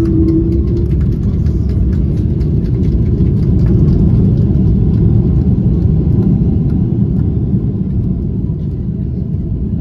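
Steady low cabin rumble of a Boeing 777-200ER rolling out after touchdown with its spoilers up, as the jet decelerates on the runway. The rumble eases a little near the end.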